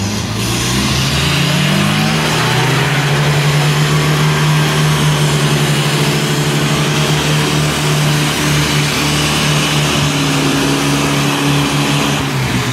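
Off-road jeep engine revving up over the first couple of seconds and then held at high revs, working hard under load while towing a stuck jeep out of deep mud with a strap. The revs drop right at the end.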